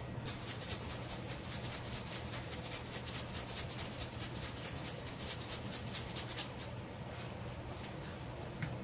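Grated Parmesan cheese being shaken from its container into a pan of sauce: a fast, even run of crackly rattling, about five or six shakes a second, that stops a little over six seconds in, over a low steady hum.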